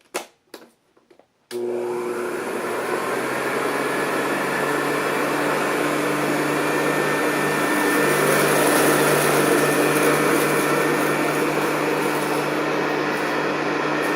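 A few clicks, then a 1970s Hoover Convertible U4007 upright vacuum cleaner switches on about a second and a half in and runs steadily with a loud motor hum and whine.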